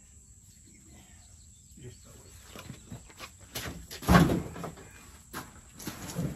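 A whole wild pig carcass swung into a pickup truck's bed lands with one loud, heavy thump about four seconds in, among a few lighter knocks.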